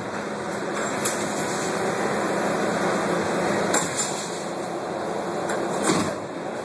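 Crowd of football fans milling and walking on a subway platform: a dense hubbub of indistinct voices and movement, with a few sharp clicks or knocks about one, four and six seconds in.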